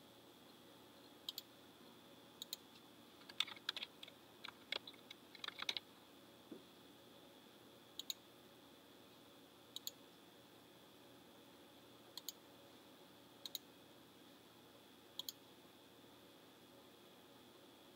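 Computer mouse clicks, a short double click every second or two, with a quick run of keyboard typing about three to six seconds in, over a faint steady electrical hum.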